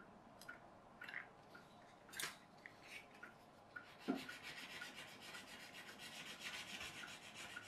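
Faint handling of small metal parts on a worktable: a few light clicks and taps, then from about halfway a fast, even scraping or rubbing of metal.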